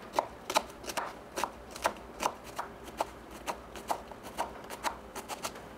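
Kitchen knife cutting through an onion and knocking on a wooden cutting board, a steady run of chopping strokes about two or three a second.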